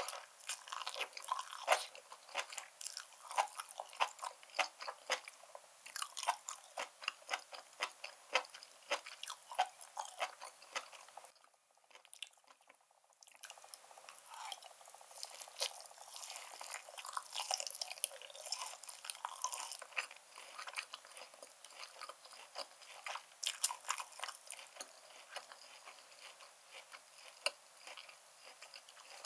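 Close-miked mouth sounds of a person eating black-bean noodles with beef and enoki mushrooms: continual wet chewing and biting with many sharp sticky clicks, broken by a short pause about halfway through.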